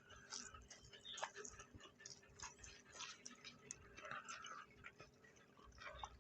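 Faint eating sounds: scattered small clicks and crackles, with some chewing.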